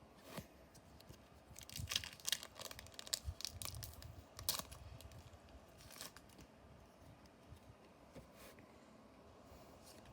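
A foil trading-card booster pack being torn open and its wrapper crinkled: a run of rips and crackles between about two and five seconds in, one more about six seconds in, then quieter handling.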